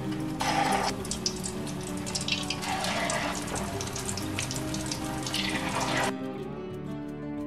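Batter-coated potato-and-shrimp bonda being dropped into hot oil for deep-frying, the oil sizzling up in a swelling hiss each time a piece goes in, three times over about six seconds. The sizzle cuts off suddenly near the end.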